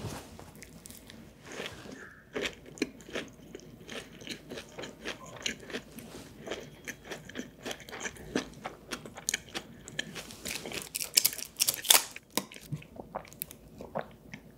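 Close-miked chewing of a vegetable-filled tortilla wrap, with many sharp, irregular crunches of fresh vegetables. The crunching is loudest and densest about eleven to twelve seconds in.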